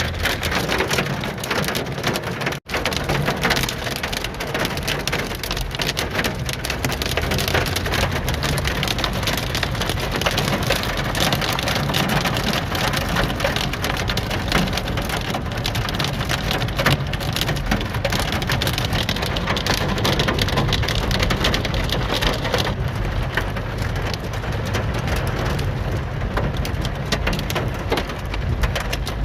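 Torrential downpour: rain drumming hard and densely on surfaces in a steady, loud, crackling hiss. The sound is broken by a split-second gap about two and a half seconds in.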